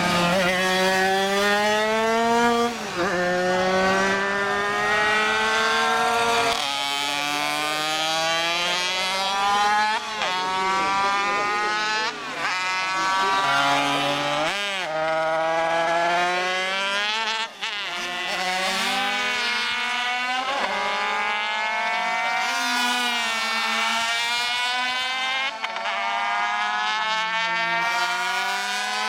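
Classic 50cc two-stroke racing motorcycles at full throttle, several at once, each engine note climbing steadily in pitch and then dropping sharply at each gear change, every few seconds.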